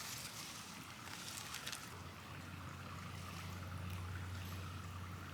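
Steady background hiss, with a low, steady hum that comes in about two seconds in.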